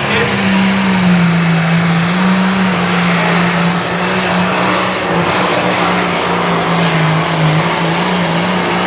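Limited Pro Stock pulling tractor's 640-cubic-inch turbocharged diesel engine running flat out under load during a pull. It holds one high, steady engine note that wavers and sags slightly about two-thirds through, then recovers.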